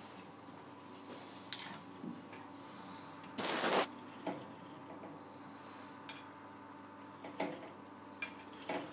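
Four-jaw lathe chuck turned by hand while a part is being dialed in, with scattered metal clicks and clinks and a half-second rubbing rush about three and a half seconds in. A faint steady hum sits underneath.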